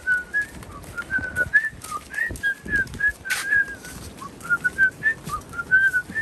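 A man whistling a quick tune through pursed lips, many short notes hopping up and down in pitch.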